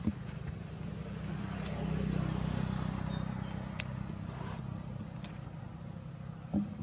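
An engine running steadily as a low hum, swelling slightly about two seconds in, with a sharp tap just after the start and another near the end.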